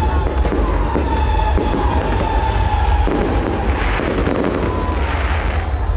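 Fireworks salute going off: a steady run of bangs and crackling bursts over a continuous low rumble, with music playing underneath.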